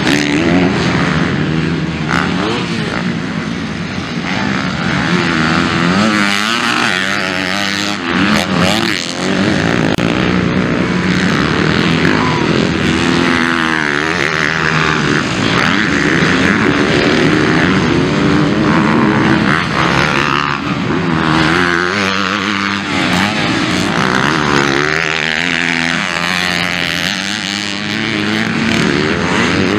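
Several MX2-class motocross bikes racing. Their engines rev up and down over and over as the riders work the throttle through corners and jumps.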